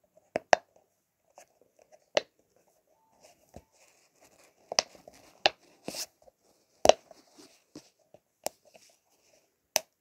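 Silicone pop-it fidget ball squeezed by hand, its bubbles popping through with sharp, irregular pops, about ten in all, and a soft rustle of handling between them.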